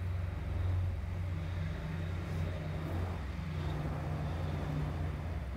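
A low, steady mechanical hum, like an idling engine, stepping up slightly in pitch a little over three seconds in.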